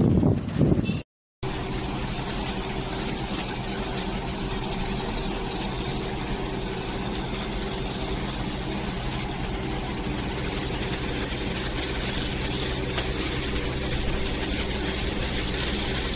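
Gusty wind buffeting the microphone for about a second, a brief dropout, then heavy rain falling steadily with a constant low motor hum underneath, like an engine idling.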